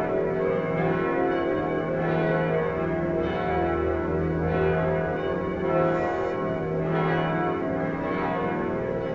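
Several church tower bells ringing together in a festive peal, their tones overlapping and humming on, with a fresh strike about every second.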